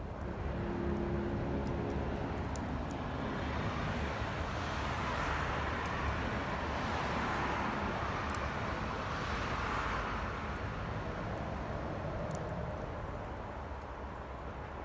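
A steady low rumble with a broad whooshing swell that builds about four seconds in and fades out again several seconds later, over which a few faint, sharp crackles from the campfire can be heard.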